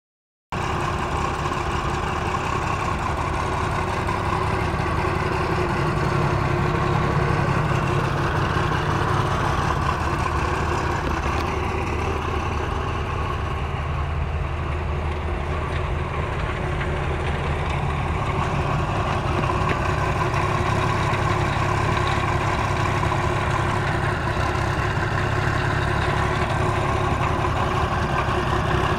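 The engine of a 1999 Rotochopper MC156 horizontal grinder idling steadily. It cuts in abruptly about half a second in.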